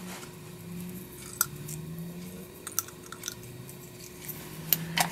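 Faint scattered clicks and scuffs of thin cardboard card wads being dropped into an empty plastic shotgun hull and pressed down flat with a fingertip.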